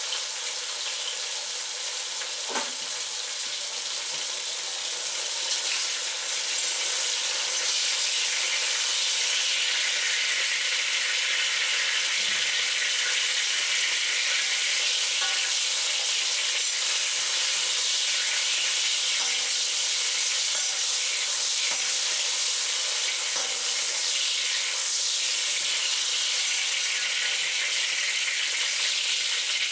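Cornstarch-coated chicken slices frying in hot oil in a wok: a steady sizzle that grows louder about six seconds in and then holds.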